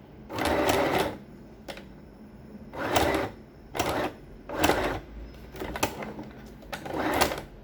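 Sewing machine stitching through very thick, folded fabric in short stop-start runs: about six bursts, each a second or less, with pauses between.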